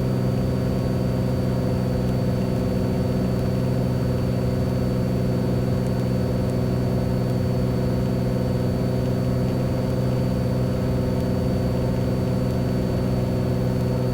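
Beechcraft Bonanza's piston engine and propeller droning steadily in the cabin on final approach, the prop set to 2500 rpm. A faint steady high whine runs over it.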